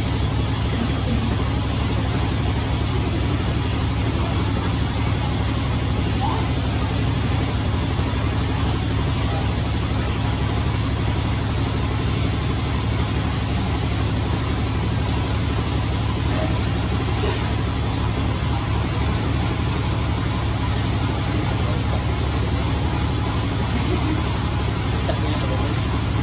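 Steady low mechanical hum under an even hiss.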